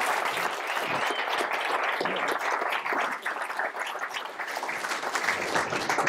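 A large audience applauding steadily.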